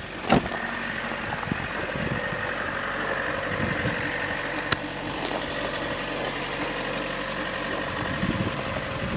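Lada Priora's four-cylinder petrol engine idling steadily just after a cold start at minus 15 °C, with no hydraulic lifter tapping heard yet on the cold engine. A sharp loud knock about a third of a second in and a fainter click about halfway through.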